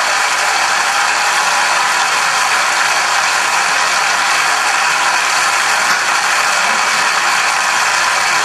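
A loud, steady hiss of noise at an even level throughout, with no tune or voice in it.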